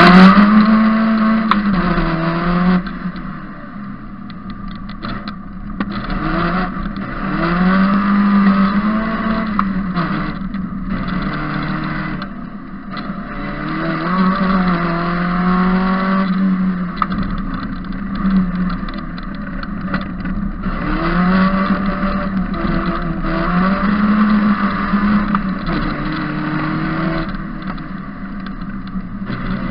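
Onboard sound of an Opel GSI-based race prototype's engine driven hard round a track. The engine note climbs under acceleration and drops at each gear change or lift off the throttle, several times over.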